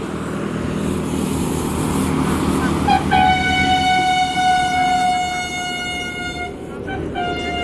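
A bus passing on the road with its engine running, sounding its horn: one long steady blast of about three and a half seconds, then a short second blast near the end.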